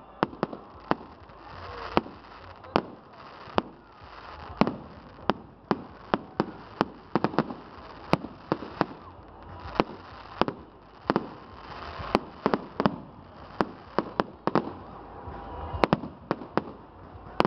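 Aerial fireworks going off overhead in an irregular run of sharp bangs, about one or two a second.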